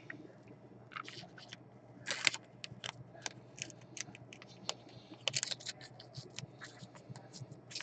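Soft clear plastic card sleeve crinkling and scraping as a thick trading card is worked into it by hand, in short irregular rustles and clicks, loudest about two seconds in and again around five seconds.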